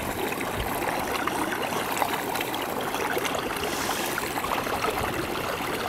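Stream water running steadily through an open hole in the snow and ice at a small beaver dam.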